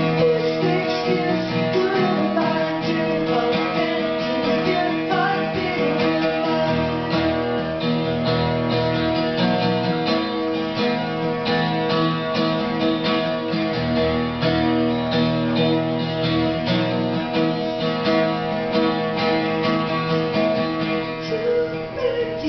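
Acoustic guitar strummed steadily in an instrumental break of a song.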